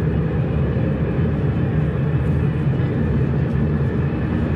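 Steady, loud, low engine drone that holds even throughout.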